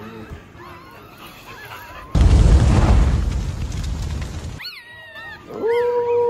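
Newborn bully puppies squeaking and crying while held in a hand: faint squeaks at first, shriller squeals near the end, and one long steady cry that drops in pitch as it ends. In the middle a loud rush of deep noise cuts in suddenly and fades over about two and a half seconds.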